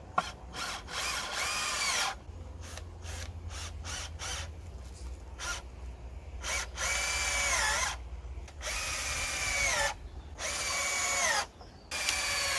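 Cordless drill-driver driving screws into pallet wood: a string of short stop-start trigger blips, then several longer runs of motor whine that sags in pitch as the screw bites and seats.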